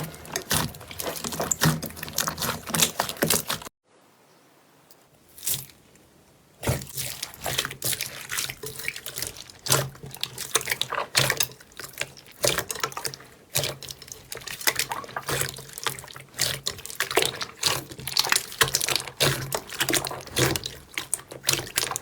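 Slime being squished and pressed by hand: a dense run of wet crackles and pops. It cuts out for about three seconds near the start, then resumes.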